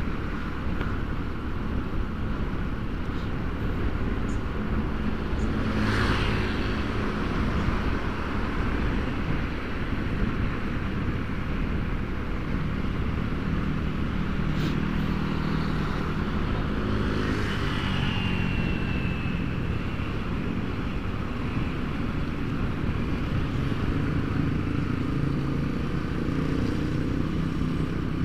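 Motorcycle engine running as it is ridden through town traffic, its pitch shifting with the throttle, under steady wind and road noise. Two louder rushing swells about six and seventeen seconds in, the second followed by a short high tone.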